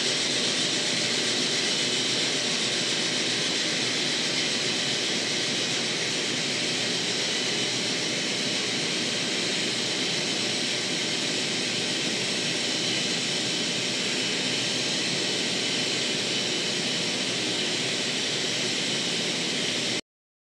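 N-scale model freight train running along the layout track, a steady whirring hiss of the locomotive motor and wheels on rail, cutting off abruptly near the end.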